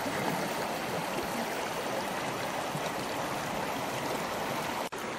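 Steady rushing of a rocky mountain stream flowing over boulders.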